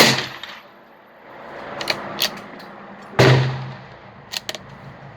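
Two .22 Magnum rifle shots about three seconds apart, each sharp and loud with a short echo. Short metallic clicks in between and after are typical of the bolt being worked on a Marlin 983T bolt-action rifle.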